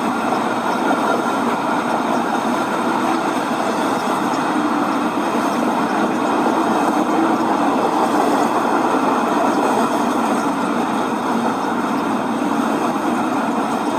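Model railroad freight cars rolling past on the track: a steady rumble of small metal wheels running over the rails.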